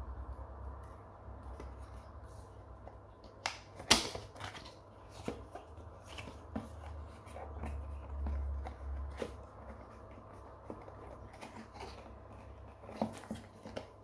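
Cardboard packaging being handled and opened by hand: scattered scrapes, taps and small clicks as the box and its inner tray slide apart, with one sharp knock about four seconds in.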